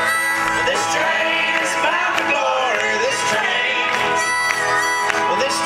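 Live folk band playing acoustic guitars and banjo, with voices singing the melody, heard from the audience.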